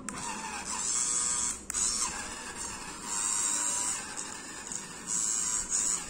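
Small electric toy motors, salvaged from an old RC car, whirring in spurts that rise and drop several times as the remote is worked, with a sharp click a little under two seconds in. The Lego plane's drive runs only intermittently: sometimes it goes, sometimes it doesn't.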